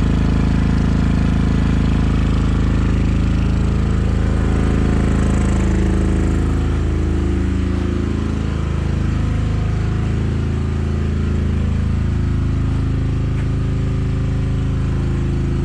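Fremont MEP-831A diesel generator running steadily under heavy load, its engine tone wavering in pitch for a few seconds about halfway through. The load comes from the greenhouse's metal-halide grow lights, which were overloading it.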